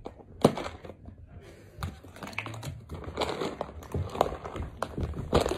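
A cat rummaging in a Dreamies treat tub, with rustling and rattling broken by irregular clicks and knocks. Sharper knocks come about half a second in and again near the end.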